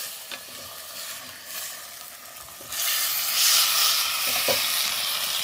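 Food sizzling as it fries in hot oil in a pan, with a few light taps of a utensil. The sizzle turns suddenly louder a little under three seconds in.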